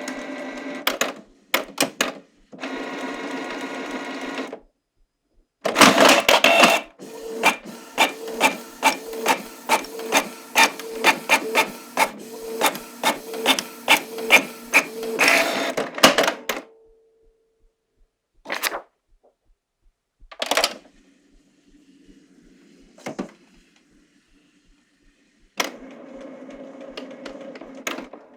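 Canon Pixma MP495 inkjet printer printing. A motor whirs, then there are about ten seconds of rapid mechanical strokes, about two a second, as the paper feeds and the print head works. These are followed by scattered clicks and another whir near the end.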